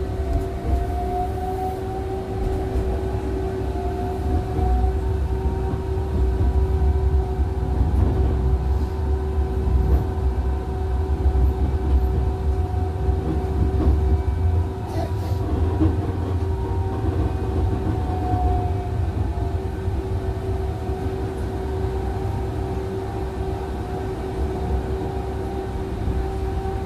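Tram running along its rails, heard from inside the car: a steady low rumble under a constant hum, with a fainter whine that slowly rises and falls.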